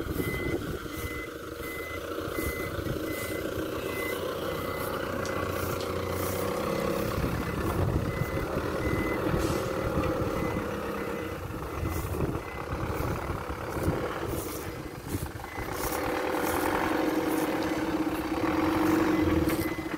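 Mitsubishi Canter light truck's diesel engine running as it maneuvers, with its reversing alarm giving a regular single-pitch beep. The engine grows louder near the end.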